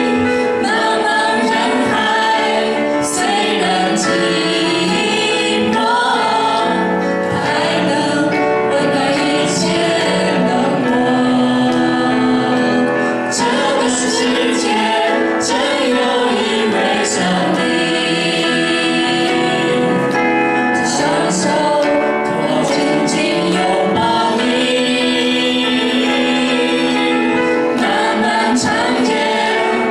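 A mixed vocal quartet, two men and two women, singing a Chinese Christian song together into microphones, with continuous melodic lines and long held notes.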